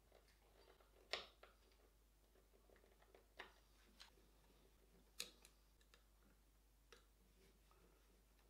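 Faint clicks and light taps of a hand screwdriver working small hinge screws into a wooden box lid: about seven short, sharp ticks over near silence, the loudest about a second in and about five seconds in.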